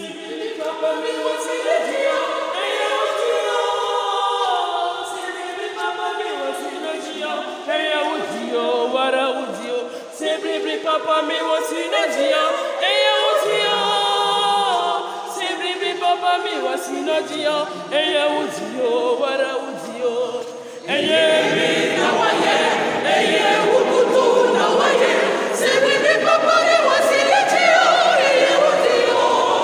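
Mixed choir of men's and women's voices singing together. About two-thirds of the way through, the singing grows fuller and louder as lower voices join in strongly.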